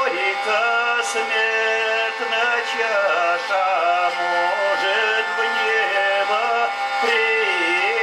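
A man singing to a hurdy-gurdy (Russian wheel lyre): a steady drone of several held tones runs under a bending, ornamented melody.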